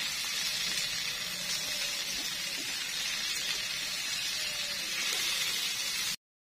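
Onions, garlic and red bell pepper sizzling as they sauté in oil in a frying pan, stirred with a spatula: a steady frying hiss that cuts off suddenly near the end.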